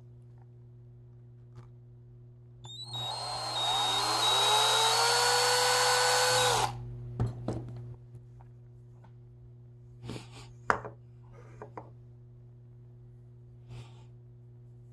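A small electric motor, like that of a power tool, runs for about four seconds, its pitch rising as it spins up and then holding before it cuts off suddenly. Scattered light clicks and knocks of handling follow, one sharp knock among them.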